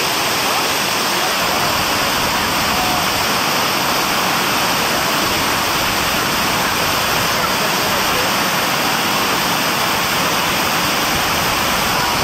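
Steady rush of water falling in a garden cascade, unbroken throughout.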